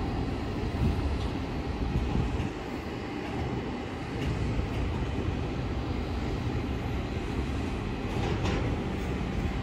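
Double-stack intermodal freight train cars on the rails, a steady rumble of wheels and cars.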